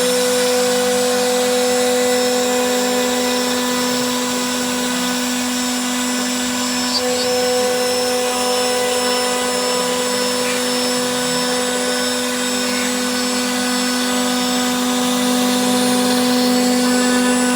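CNC router spindle running steadily while cutting wood, a constant hum with a steady whine.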